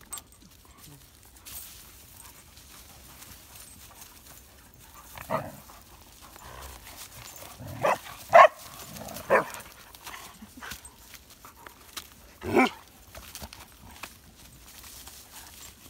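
Dogs barking: five short, separate barks spread over the stretch, the loudest a little past the middle.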